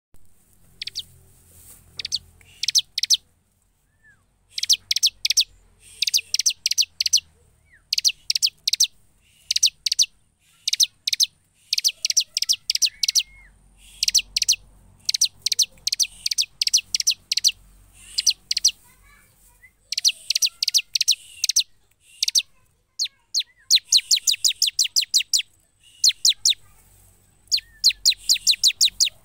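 Bar-winged prinia (ciblek) singing in full voice: repeated bursts of rapid, sharp, high chips, each burst about a second long with short pauses between. About two-thirds of the way through, one run of chips goes on longer.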